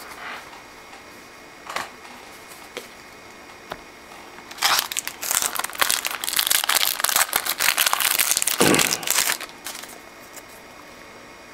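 A trading-card pack's wrapper crinkling as it is torn open and handled: a dense run of crackling, lasting about five seconds, starts a little before halfway through. It follows a few faint clicks.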